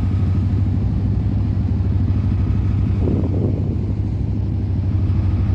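A steady, low engine drone with an even hum, running without change.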